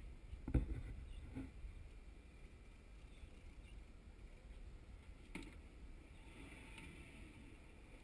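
Low steady rumble of wind and water on a small aluminium boat, with a few short knocks, the loudest about half a second in and another about five seconds in.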